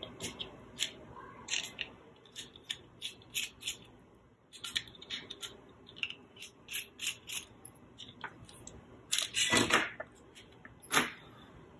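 Small screws being undone and a circuit board being worked out of a plastic sensor housing by hand: a run of small clicks, ticks and scrapes. A longer, louder scrape comes about nine to ten seconds in as the board comes free, then a sharp click.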